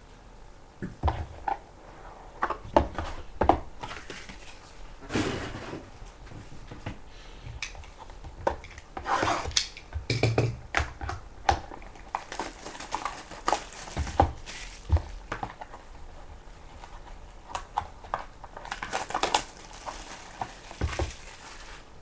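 Hands unwrapping and handling a trading-card box: crinkling of plastic wrap in short spells, with scattered taps and clicks of cardboard boxes handled and set down on the table.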